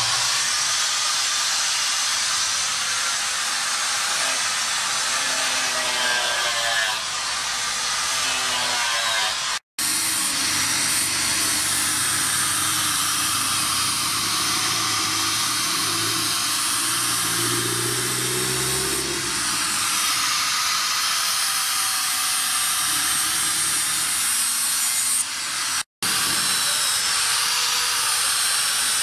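Handheld electric angle grinder with an abrasive disc grinding along a steel sword blade: a steady hissing grind of disc on metal, throwing sparks. It breaks off abruptly for an instant twice, about ten seconds in and near the end.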